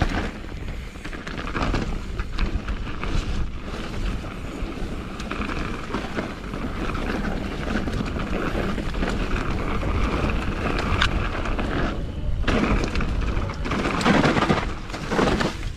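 Mountain bike riding down a dirt trail: tyres rolling and the bike rattling over the ground, with wind rushing over the microphone and a few sharp knocks. The noise briefly drops away about twelve seconds in.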